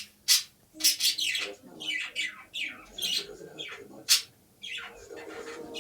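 A bird calling in a rapid run of shrill squeaks, each falling in pitch, about two a second: the funny noise the dog is curious about.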